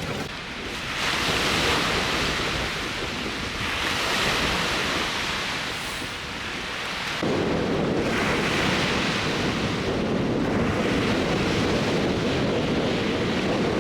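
Strong wind and waves washing on a lakeshore, the rushing noise swelling and fading every few seconds. About seven seconds in, a heavier, lower rumble of wind buffeting the microphone sets in.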